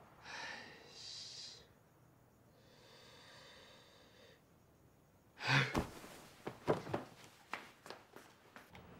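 A young man breathing out hard twice, then a longer, quieter sigh. About five and a half seconds in comes a sudden loud knock, followed by a scatter of sharp clicks and knocks.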